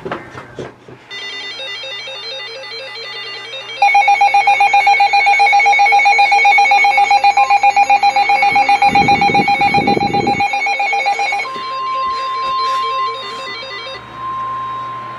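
Emergency alert tones on a NOAA Weather Radio broadcast ahead of a severe thunderstorm warning. About a second in comes a busy warbling electronic pattern. Then a loud, rapidly pulsing two-pitch alarm sounds for about seven seconds, and from about eleven seconds in a single steady alert tone holds.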